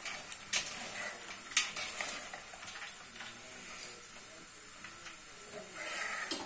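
Crisp rustling of shredded cabbage being tossed and sorted by hand in a stainless-steel colander, as the hard stalk pieces are picked out. Two sharp taps in the first two seconds, the second the loudest.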